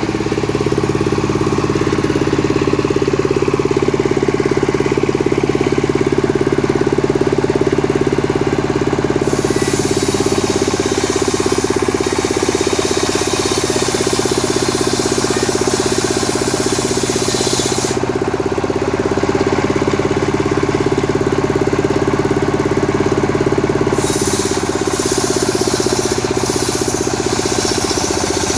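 Stihl MS 382 two-stroke chainsaw running steadily while sawing old coconut wood into blocks. A hissing noise joins the engine note from about a third of the way in to about two thirds, and again near the end.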